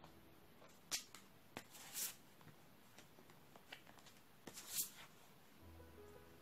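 Large round cardstock photo cards being handled and laid on top of one another: faint rustling with about four short paper taps and slides.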